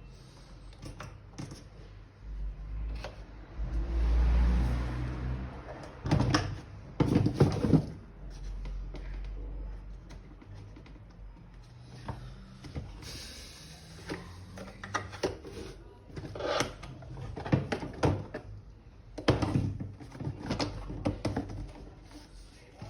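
Irregular knocks, clicks and scraping of vacuum cleaner parts being handled and fitted by hand, with a low rumble about four seconds in and louder bursts of clatter around seven seconds and again near eighteen to twenty seconds.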